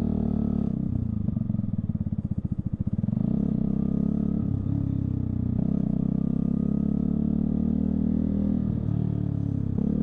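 Keeway Superlight 125's single-cylinder engine running under the rider. The revs drop to a slow, pulsing chug for a couple of seconds, then it pulls steadily again, with brief dips in pitch further on.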